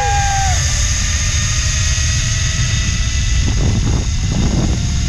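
Zipline ride: wind rushing over the microphone as a steady loud roar, with the trolley's pulleys running along the steel cable as a thin steady whine. A brief rising-and-falling vocal call sounds right at the start.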